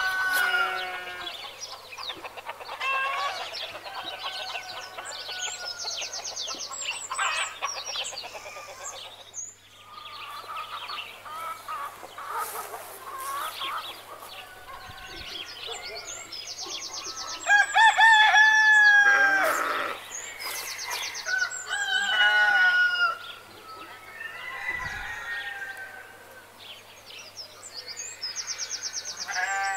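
Chickens clucking and a rooster crowing, with small birds chirping; the loudest call comes a little past halfway.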